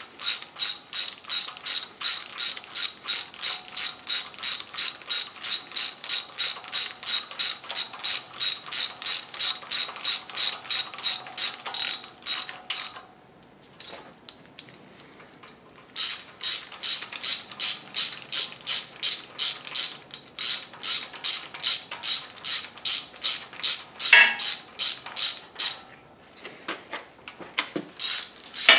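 Hand ratchet clicking in quick, even runs as bolts on an engine block are run down, with a pause in the middle and another near the end.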